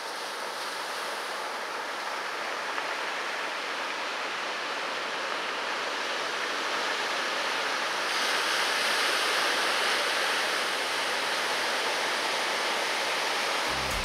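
Ocean surf breaking and washing: a steady hiss of white water that grows a little louder about eight seconds in.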